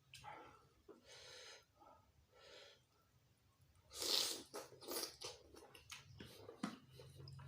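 A person chewing food close to the microphone, with wet mouth clicks and crunches coming in short bursts, the loudest about four seconds in.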